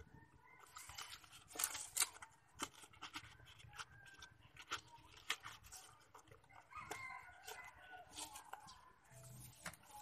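Sharp clicks and knocks of a bamboo-slat bird trap cage being handled and set, loudest about two seconds in, with chickens clucking in the background.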